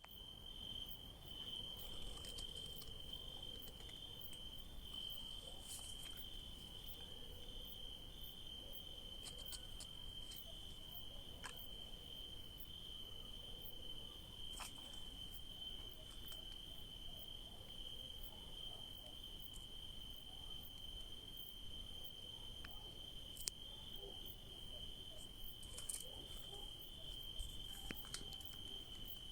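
Crickets chirping: one continuous, steady high-pitched trill, with a few faint ticks scattered through it.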